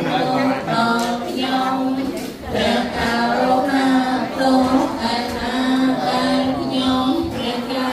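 A group of voices chanting together in unison on long held notes, with a short break about two and a half seconds in.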